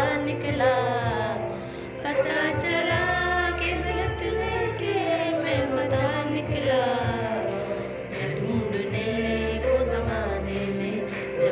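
Background music: a song with a sung vocal melody over a steady accompaniment.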